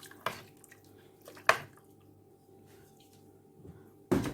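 A spoon stirring gizzards in a pot of water, knocking against the pot a few times, loudest about a second and a half in and again near the end, over a faint steady hum.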